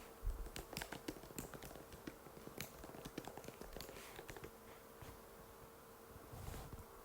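Typing on an Apple MacBook butterfly keyboard: a quick run of light key clicks for about four seconds, then a pause, with a low thump near the end, over a faint steady hum.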